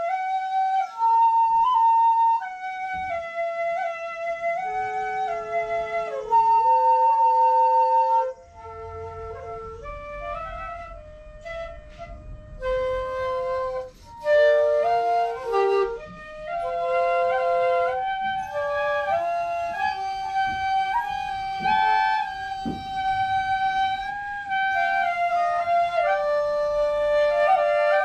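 Japanese bamboo flutes playing a melody in held, stepwise notes: first a shinobue, the transverse bamboo flute, alone; after a break about eight seconds in, a shakuhachi plays along with it.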